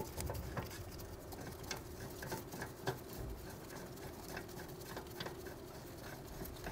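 Faint, irregular light clicks and taps of metal parts being handled on a rear brake caliper bracket and hub, over a steady low hum.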